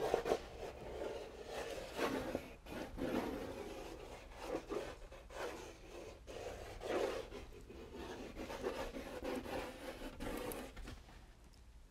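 Drawing pencil scratching and rubbing across a sheet of paper pinned to a wall, in quick irregular strokes that thin out near the end.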